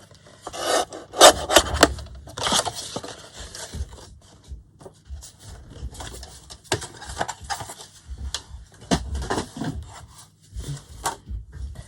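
Card and paper scraping and rubbing in irregular bursts, with several sharp clicks, as a strip of card is handled and cut to size.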